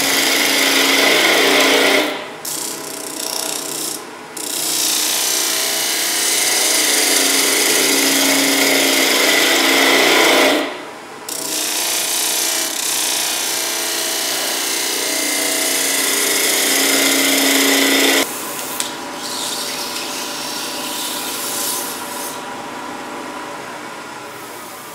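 A hand turning tool cuts the outside of a wooden vase spinning on a wood lathe, thinning the lower wall: a steady hiss of wood being cut over the lathe's hum. The cut breaks off twice briefly as the tool lifts away, then stops about 18 seconds in, leaving the lathe running on its own.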